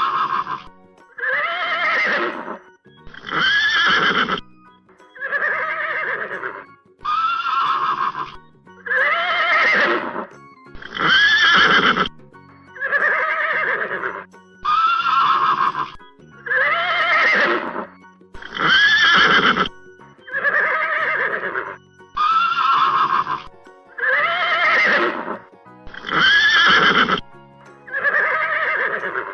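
Horse whinnying over and over: one short neigh, the same call each time, repeats about every two seconds like a looped sound effect.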